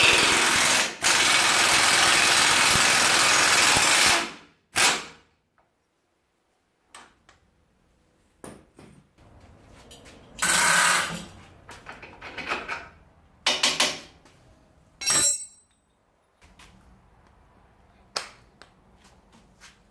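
Power tool running in bursts on the rear-axle mounting bolts of a truck frame. It runs for a long burst of about four seconds, then several short ones, with sharp metal knocks in between.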